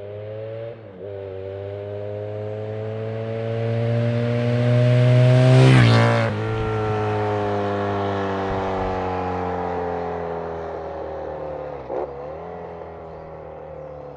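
A motorcycle engine approaching under acceleration, its note climbing and growing louder until it passes close by about six seconds in. The pitch then drops suddenly and the note fades away, with short breaks in the note about a second in and again near the end.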